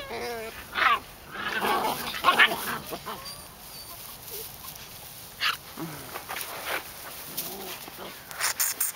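White Swiss Shepherd puppies vocalizing as they play-fight: a wavering whine at the start, then several short yips, loudest about two seconds in, then quieter.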